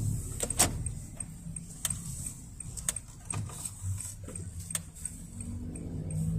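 Honda N-BOX's three-cylinder kei-car engine and road noise heard from inside the cabin while driving and turning, with the turn signal ticking steadily about three times a second. A few sharp clicks or rattles stand out, the loudest about half a second in.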